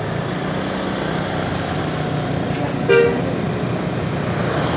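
A vehicle engine running steadily, with one short horn toot about three seconds in.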